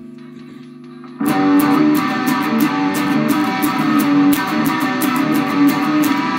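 Instrumental intro of a guitar band song: a quiet sustained hum, then about a second in the full band comes in loud with strummed electric guitar and bass over a steady beat of sharp hits.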